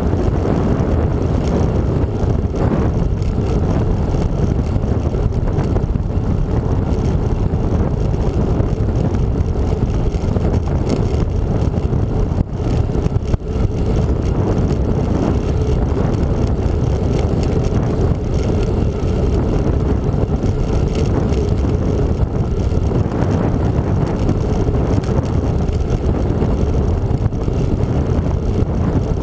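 Wind rumbling steadily on the microphone of a handlebar-mounted camera on a moving bicycle, easing briefly about twelve seconds in.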